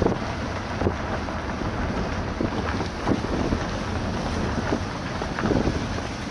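Vehicle driving over a rough, stony dirt road, heard from inside the cabin: a steady rumble with frequent knocks and rattles as the wheels go over rocks, and wind buffeting the microphone.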